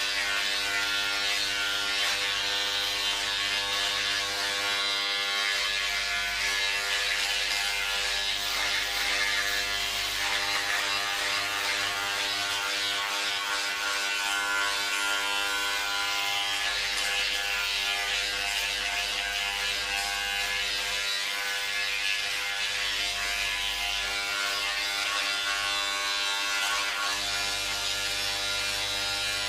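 Electric hair clippers running steadily: a constant pitched hum with a hiss above it.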